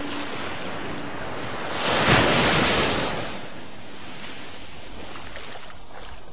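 Sea waves: a steady wash of surf, with one wave swelling up about two seconds in and then drawing back.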